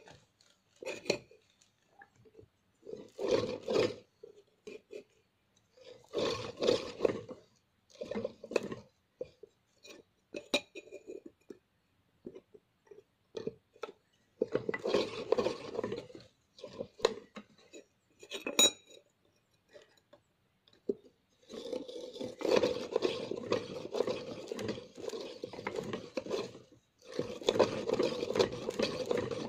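Homemade wooden pump drill with a wooden flywheel, its bit grinding into a steel planer blade: metallic scraping and clinking in short spells with pauses, then almost continuous for the last third.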